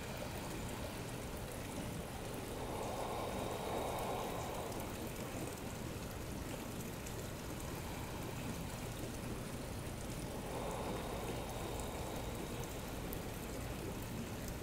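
Steady background hiss like running water, with two slow, soft swells of breath, one about three seconds in and one about eleven seconds in, as the held pose is breathed through.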